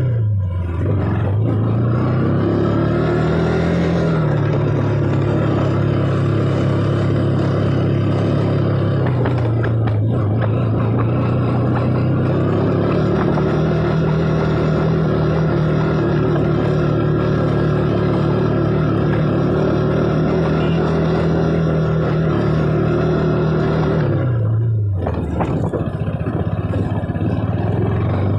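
KTM RC 200's single-cylinder four-stroke engine through its stock exhaust, under way: the note climbs a couple of seconds in, eases off, then holds a steady pitch for a long stretch before dropping sharply about three seconds before the end as the throttle is rolled off.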